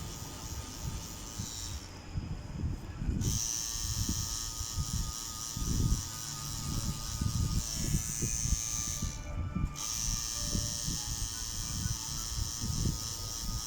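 Electric tattoo machine buzzing steadily, cutting out briefly twice, with irregular low knocks underneath.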